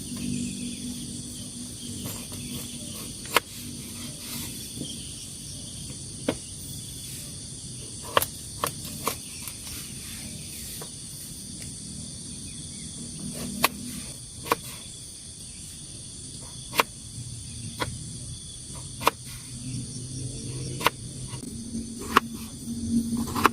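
Steady chorus of crickets and other night insects, with sharp, irregular clicks every second or two.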